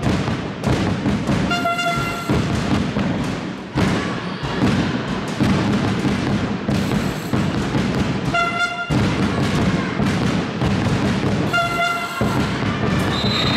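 Handball crowd noise with drumming, cut through by short horn blasts about two, eight and a half and eleven and a half seconds in, and a longer horn starting near the end.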